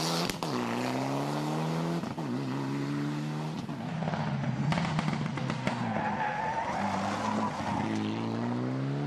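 Mitsubishi Lancer Evolution rally car's turbocharged four-cylinder engine at full throttle, climbing in pitch and dropping back sharply several times as it shifts or lifts. Tyres skid on the loose surface, with a few sharp cracks near the middle.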